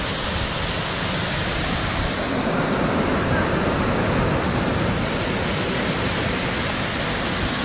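Waterfall pouring, a loud steady rush of water that swells a little about two seconds in.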